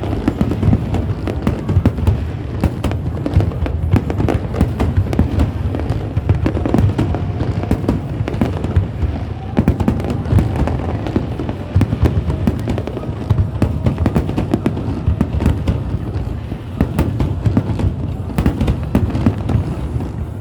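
Fireworks bursting in rapid, continuous succession: many close, overlapping bangs over a steady low rumble, with no pause.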